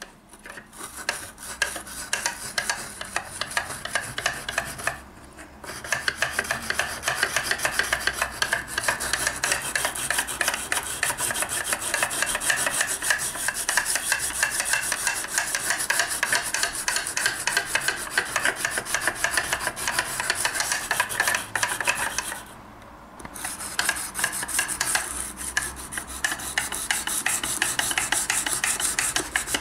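Knife blade being sharpened by hand in a guided-angle jig: an abrasive on a guide rod is stroked quickly back and forth along the edge at a fixed 20° angle, making a steady, fast scraping. It pauses briefly about five seconds in and again a few seconds before the end.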